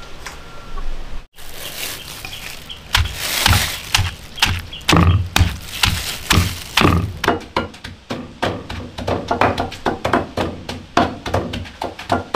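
Wooden pestles pounding cooked spinach in stone mortars: a run of dull thuds, spaced out at first, then quicker and overlapping from about halfway as two pestles work at once.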